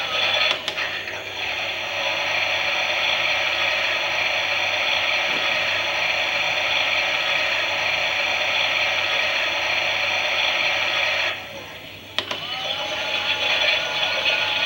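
Small electric motor and plastic gearing of a toy Klein Miele washing machine running steadily with a whirring, gear-driven noise. About three-quarters of the way through it stops for a moment, then starts again, its whine rising as it speeds back up.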